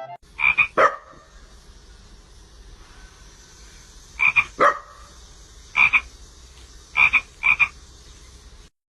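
An animal giving short, loud calls, several in quick pairs, in four clusters spread over several seconds, over a faint steady background hiss.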